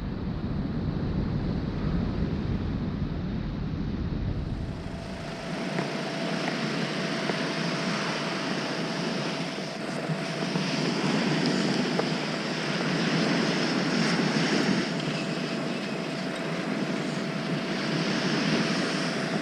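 Surf breaking and washing up a sandy beach. Wind rumbles on the microphone for the first few seconds; about five seconds in the rumble drops away and a faint steady hum sits under the surf.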